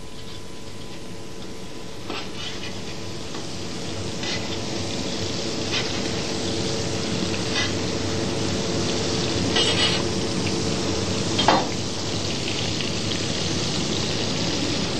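Thick onion slices sizzling on a hot griddle plate as they char to give a dark stock its colour, growing slowly louder. A knife scrapes and taps on the metal plate a few times as the slices are turned.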